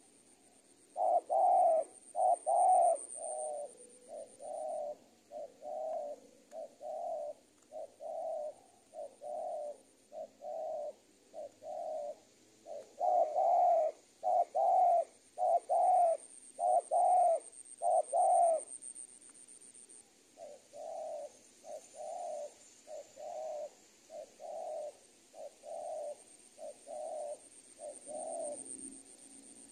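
Spotted dove (tekukur) cooing over and over in long series of short notes. The coos are loudest at the start and again in a run midway, softer in between, and stop near the end.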